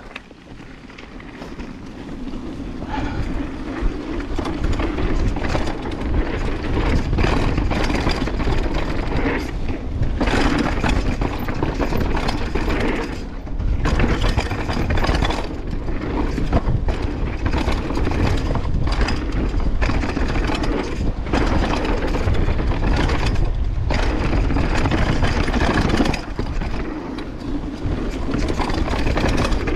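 Banshee Legend downhill mountain bike riding fast down a dirt trail: wind rushing over the microphone, tyres rolling over dirt and roots, and the bike rattling, with the chain still clattering a little. It gets louder over the first few seconds as speed picks up, with short drops near the middle and two-thirds of the way through.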